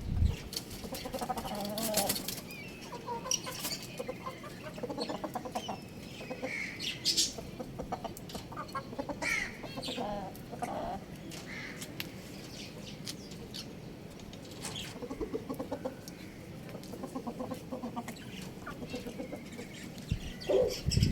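Chickens clucking with short calls at intervals, mixed with wings flapping and scuffling.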